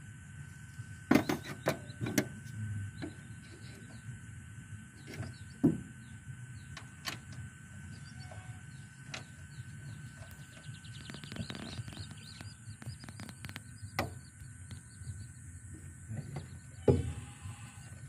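Scattered light clicks and knocks of metal parts and hand tools being handled on a combine harvester's gear case, over a low background hum, with a sharper knock near the end.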